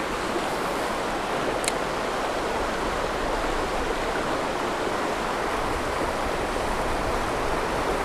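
Steady rush of whitewater rapids tumbling over rocks below a river spillway.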